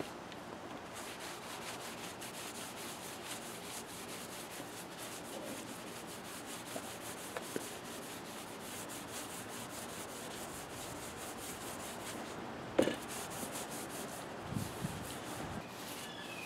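Paper towel rubbing wood stain onto a sanded wooden walking stick: a steady dry rubbing made of quick repeated strokes. A single sharp knock comes about three-quarters of the way through, followed by a few soft thumps.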